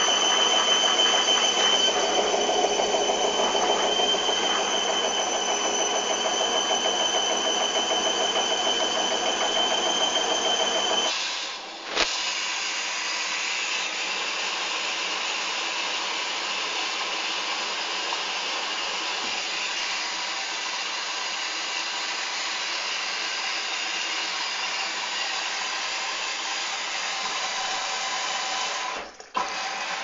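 Hoover Dynamic washing machine on its first intermediate spin with a heavily sudsed load in a sudslock: the drum motor runs with a steady high whine over a rumble. After an abrupt cut about eleven seconds in, a quieter steady hiss follows as the machine fills with water for the first rinse.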